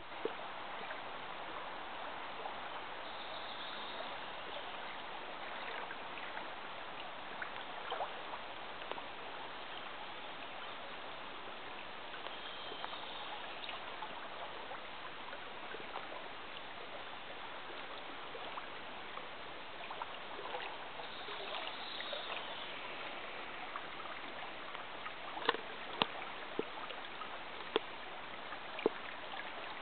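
Small river flowing over a shallow riffle, a steady even rushing of water, with a few sharp clicks near the end.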